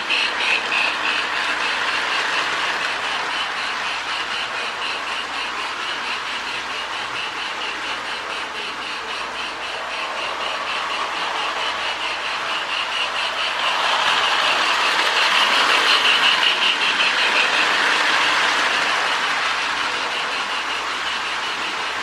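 Marx O-gauge toy train (Mercury locomotive) running around the track, with the motor and wheels on the rails under a steady rhythmic steam chuff from a Lionel Sound of Steam board played through a small speaker in the tender. The sound swells about two-thirds of the way through as the train comes close, then eases off.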